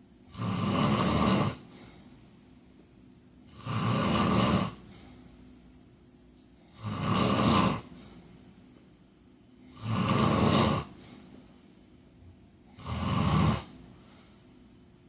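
A man snoring in his sleep: five snores at an even pace about three seconds apart, each lasting about a second, the last one a little shorter.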